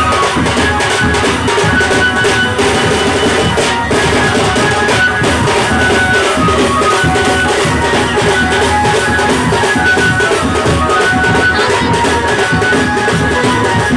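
Drum band playing: large strapped drums beaten with sticks in a dense, steady rhythm, with a high melody line stepping from note to note above them.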